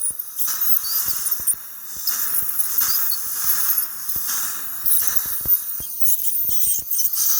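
Dental scaling at the chair: a steady high hiss with squeals and small clicks from an ultrasonic scaler's water spray and the suction working in the patient's mouth.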